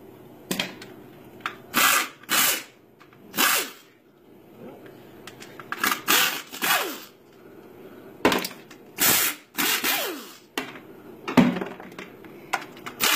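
Power drill with a socket spinning out the transmission oil pan bolts in a dozen or so short bursts, the motor winding down after several of them.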